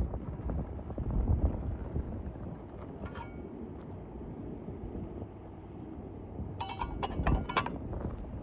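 Light metallic clinks of camp cooking gear: one ringing clink about three seconds in, then several more in quick succession near the end, over a steady low background rumble.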